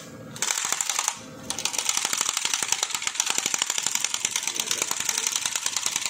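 Impact wrench hammering on the Yamaha WR155's flywheel rotor nut to break it loose: a short burst, a brief pause, then a long run of rapid, evenly spaced blows.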